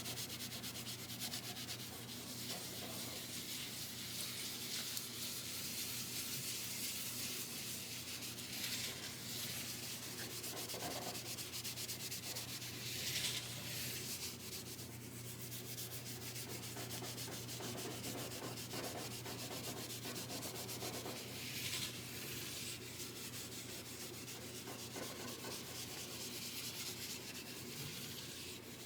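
Cloth rubbing back and forth on a Gibson SG's fretboard, working in lemon oil: a steady, scratchy rubbing.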